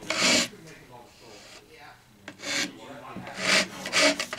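Hand file rasping in strokes across the tip of a carbon fiber propeller, shaping the hardened Q-Bond filler of a tip repair. One stroke comes at the start, then a pause of almost two seconds, then three quicker strokes near the end.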